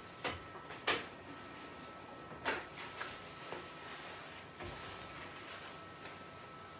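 A few short sharp clicks and knocks of handling in a small room, the loudest about a second in, over a faint steady high electronic tone.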